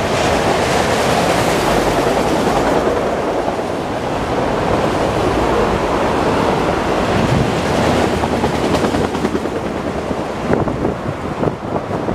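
Canadian Pacific freight train's autorack cars rushing past at speed: a steady roar of steel wheels on rail, with sharper clicks and knocks coming in over the last couple of seconds.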